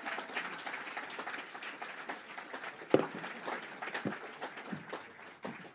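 Audience applauding, slowly dying away toward the end, with a single sharp thump about three seconds in.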